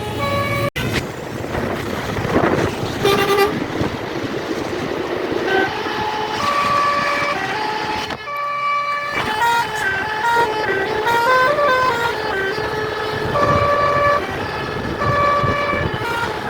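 Tour bus's basuri telolet horn playing a tune: a string of held notes stepping up and down in pitch, over a noisy background, with a brief dropout near the start.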